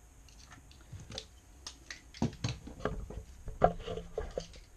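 Handling noise: a run of light clicks and knocks as the camera is picked up and moved, denser from about two seconds in, the loudest knock about three and a half seconds in.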